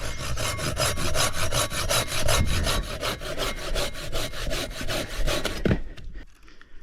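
Hand saw cutting through wood, probably firewood, in rapid, even strokes of about five a second. The sawing stops about a second before the end.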